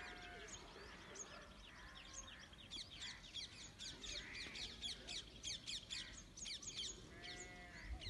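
Faint chorus of small birds chirping, many quick high chirps that come thickest in the middle. Two short pitched animal calls that rise and fall sound once at the start and once about seven seconds in.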